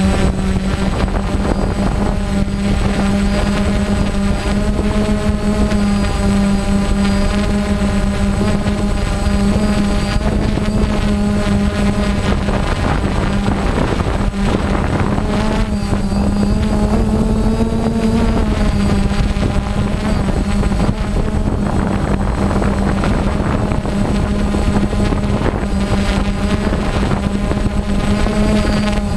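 Drone's electric motors and propellers humming steadily as it hovers high in the air, heard from a camera mounted on the drone itself; the pitch wavers slightly as the motor speeds are adjusted, rising briefly a little after halfway.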